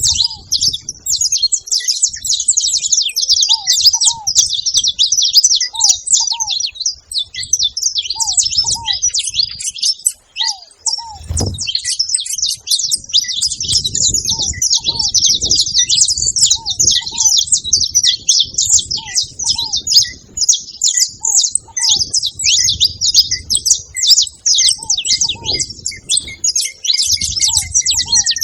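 A flock of saffron finches chirping and twittering nonstop, many high calls overlapping, with a lower, short falling note repeating every second or two.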